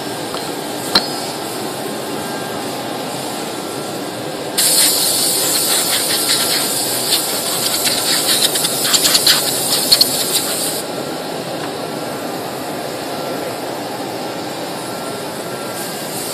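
1325 CNC router running with a steady mechanical hum, and a sharp click about a second in. From about four and a half seconds to nearly eleven seconds a loud hiss of compressed air blowing chips off the cut pieces rides over it.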